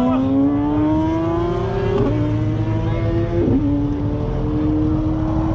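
Sport bike engine accelerating through the gears: its pitch climbs steadily, then drops sharply at an upshift about two seconds in and again about three and a half seconds in.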